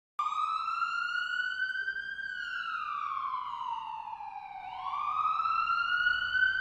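Wailing police-style siren sound effect that starts suddenly and slowly rises and falls in pitch: it climbs for about two seconds, sinks for about two and a half, then climbs again.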